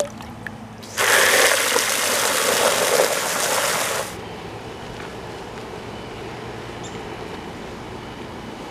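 Water gushing into a plastic bucket of car-wash soap for about three seconds, then cutting off suddenly; after that only a faint steady background hiss.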